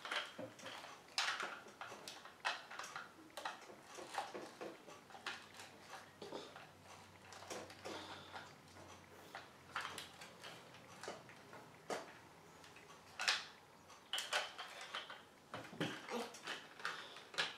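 Hard plastic toy parts clicking and knocking at irregular intervals as the Miles Exo-flex suit toy is handled and the small Miles figure is fitted into its clear dome.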